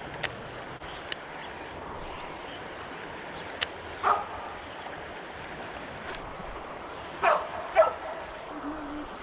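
Creek water running steadily, with a few faint clicks and a few short high yelps about four seconds in and twice near the end.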